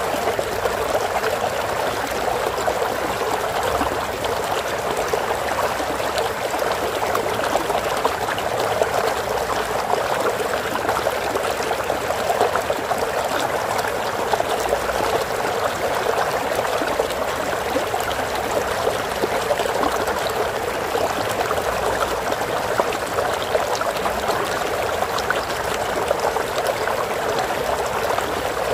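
Running water of a stream, a steady trickling and splashing that stays even throughout.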